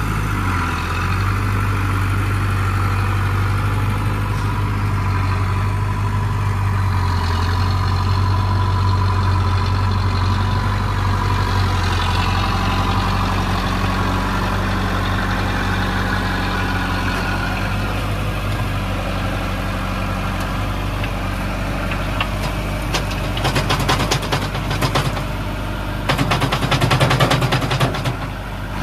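LS Plus 80 tractor's diesel engine running steadily under front-loader work. Near the end a rattling clatter joins it as a bucketful of earth and clods pours into the steel trailer bed.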